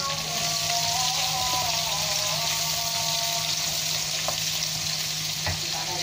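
Sliced shallots, garlic and ginger sizzling steadily in hot oil in a wok as they are stirred with a wooden spatula, with two light knocks near the end. A distant sung call to prayer with long, wavering notes carries over the sizzle for the first couple of seconds.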